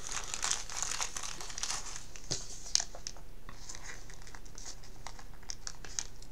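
Thin clear plastic penny sleeve crinkling and crackling as a trading card is worked into it, a fiddly fit. The crinkles come thick and fast for the first few seconds, then thin out to scattered small ticks.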